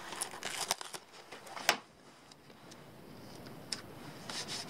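Paper and plastic crinkling and rustling with light clicks as a sticker is peeled and handled, with one sharp click a little under two seconds in. Near the end, fingers start rubbing a sticker down onto the ATV's plastic body panel.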